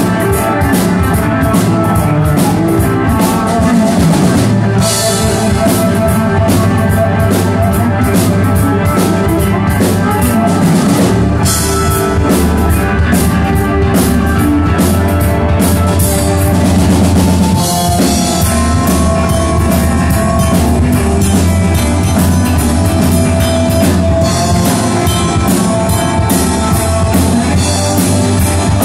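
Live rock band playing loudly: a drum kit, an electric bass and electric guitars.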